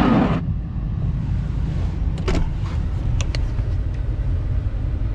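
Steady low rumble of a car's engine and road noise heard from inside the cabin while driving, with a brief rush of noise at the start and a few sharp clicks about two and three seconds in.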